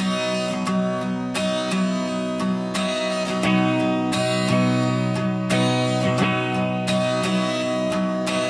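Background music: an acoustic guitar intro, strummed chords repeating in a steady rhythm.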